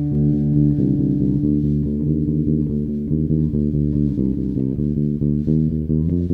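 Instrumental stretch of a punk song: electric guitar and bass guitar playing a riff of quick picked notes that change pitch in a steady rhythm, with no vocals.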